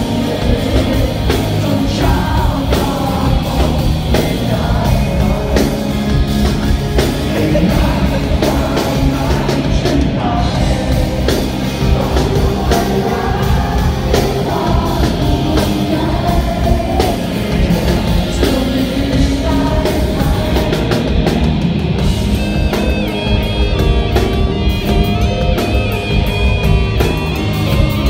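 Live rock band playing loudly through the PA, with a male singer over electric guitars, bass and drums. Near the end the singing gives way to an electric guitar lead line.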